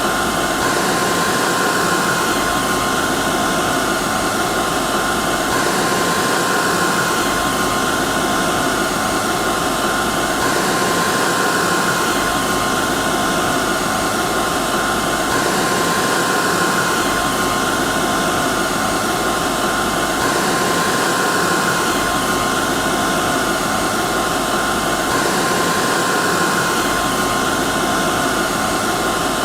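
Hair dryer running steadily: an even blowing rush with a constant whine over it, repeating in a loop about every five seconds.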